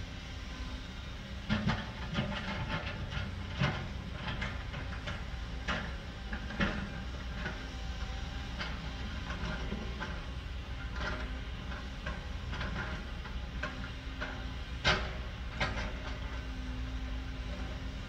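Heavy construction machinery, a tipping dump truck and a tracked excavator, rumbling steadily under an irregular clatter of rocks knocking and tumbling, with a sharp loud knock about fifteen seconds in.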